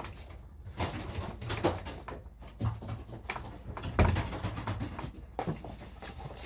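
Racing pigeons being handled at the loft: rustling, clicks and knocks, with low pigeon cooing. The loudest knock comes about four seconds in.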